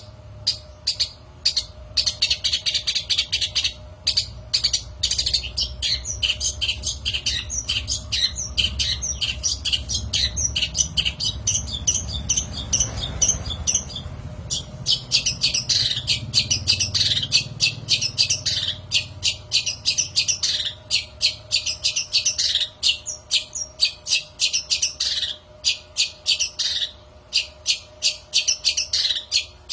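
Long-tailed shrike (cendet) singing: fast runs of sharp ticking notes and dense scratchy chatter, with a short break about halfway through.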